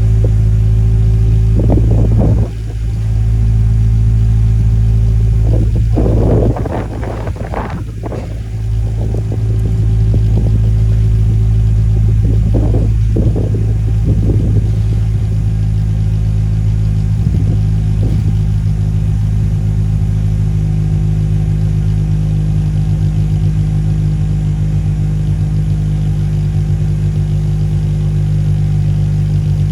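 Car engine running steadily at idle, with a few brief louder noises over it in the first half.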